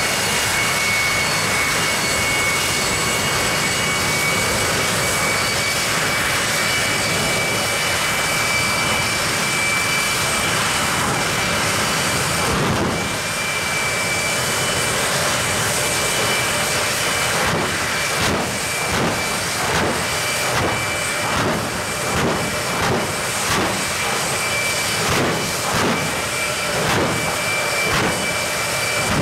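Jet engine of the Xtreme Machine jet truck running at the start line: a loud, steady rush with a high turbine whine. From about 17 seconds in, the sound pulses in regular surges, a little more than one a second.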